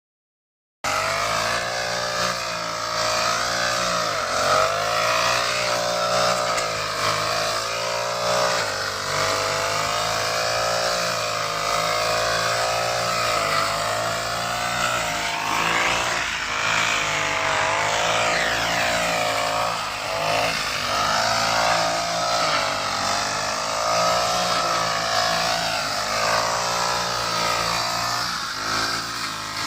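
Engine-driven grass cutter running continuously as it cuts grass. Its engine pitch wavers up and down throughout.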